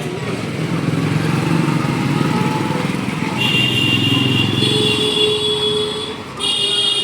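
A motor running with a low pulsing hum, joined about three and a half seconds in by steady high-pitched tones, with another burst of them near the end.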